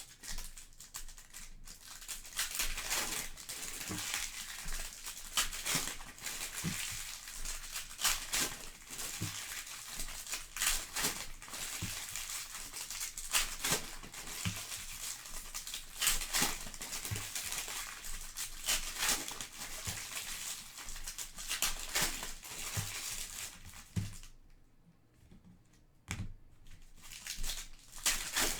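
Foil trading-card pack wrappers being torn open and crinkled by hand, a continuous crackling rustle with sharp snaps, pausing briefly near the end before starting again.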